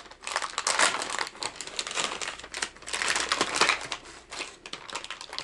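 Plastic soft-bait package crinkling as it is handled and opened, a continuous run of crackles and rustles that swells and fades.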